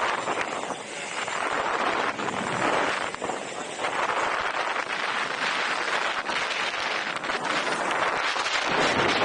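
Heavy wind buffeting the camera microphone while riding an electric unicycle at speed: a continuous rushing noise that swells and dips in gusts.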